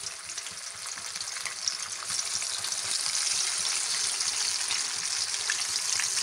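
Gram-flour-coated fish slices deep-frying in hot oil in a wok: a steady hissing sizzle with many small pops and crackles, growing louder about two seconds in.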